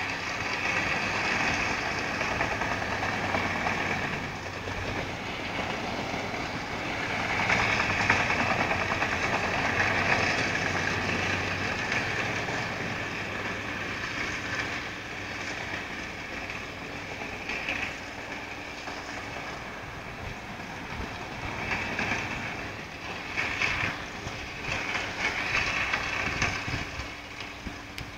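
Heavy machinery working: a tree chipper and grapple excavator running steadily, the grinding noise swelling and easing as wood is fed through.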